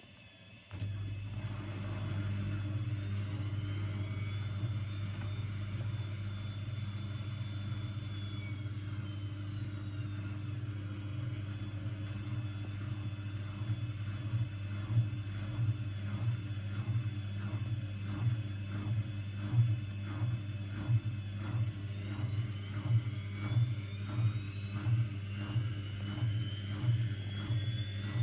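AEG washing machine in its spin cycle: the drum motor starts up under a second in with a steady hum, its whine rises, holds, then falls away, and rises again near the end. From about halfway on the drum thuds regularly, a little over once a second.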